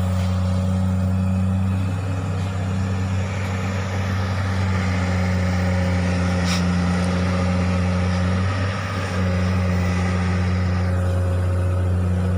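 Komatsu hydraulic excavator's diesel engine running steadily under working load, with a brief dip in its note about two-thirds of the way through.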